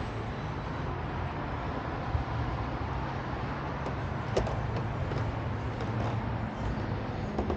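Steady low engine hum under a general outdoor haze, with a few short sharp clicks, the clearest about four and a half seconds in.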